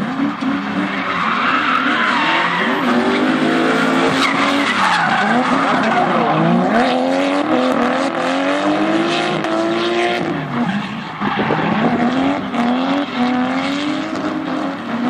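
Drift cars sliding through a corner with engines revving hard, the pitch rising and falling again and again as the throttle is worked, over the steady hiss of tyres spinning and skidding sideways.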